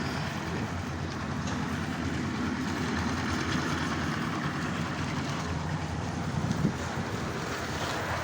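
Steady low engine-like rumble of a running vehicle, unbroken, with a brief small sound about six and a half seconds in.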